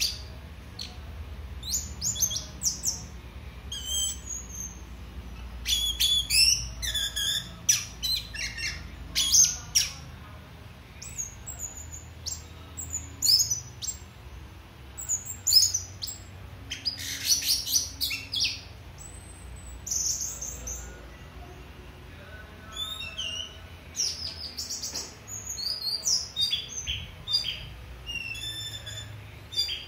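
Orange-headed thrush singing: runs of quick, varied high whistles and chirps, delivered in bursts of a few seconds separated by short pauses.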